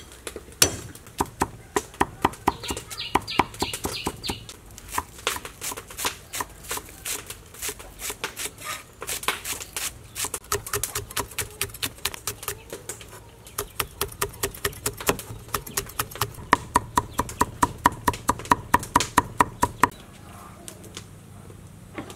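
Cleaver chopping chillies and other vegetables on a thick wooden chopping board: quick, regular knocks about four a second that stop shortly before the end.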